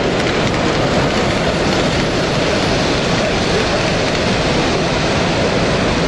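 Steady din of a busy exhibition hall, a wash of crowd chatter, with a model train running round the curved track.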